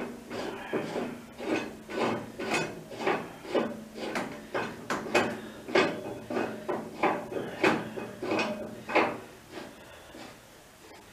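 Repeated metallic clanking and knocking, about two to three knocks a second, from hands-on work at a motorcycle lift; it stops near the end.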